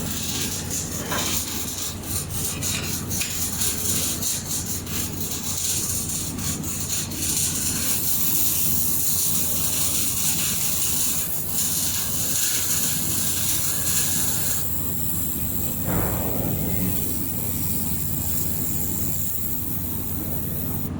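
Air-cooled handheld laser welder running a weld: a steady hum under a loud hiss, with many crackling clicks in the first several seconds. The high part of the hiss drops off about 15 seconds in.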